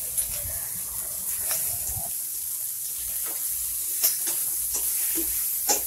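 Chopped onions, chillies and halved tomatoes sizzling in oil in a steel kadai, a steady hiss, with a few sharp clicks scattered through it as the pan's contents are stirred.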